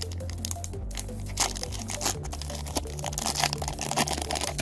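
Foil trading card pack crinkling and crackling as it is torn open and pulled apart by hand, in short bursts, over background music with a steady bass line.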